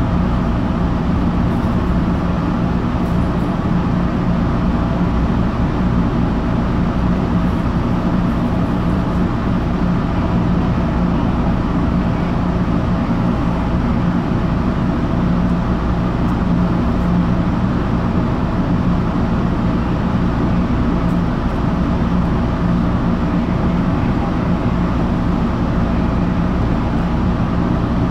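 Steady interior running noise of an MBTA Red Line subway car moving at low speed: a constant hum from the traction equipment over wheel and track rumble. The train is crawling because of a switching problem on the line.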